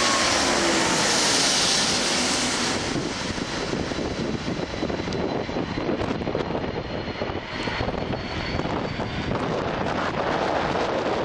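Four-engine Airbus A340-600 jet airliner passing close by, loudest with a hissing roar in the first two seconds or so, then easing into a fluctuating engine rumble.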